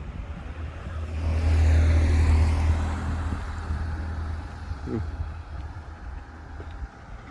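A car passing by on the street: its tyre and engine noise rise about a second in, peak, then fade away.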